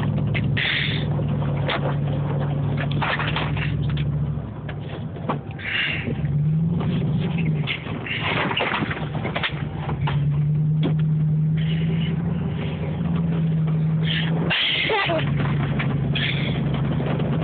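Dodge Dakota pickup's engine running hard at a fairly steady pitch while doing donuts in snow, with one brief rise and fall in revs about six to seven seconds in. Recurring short bursts of hiss sit over it.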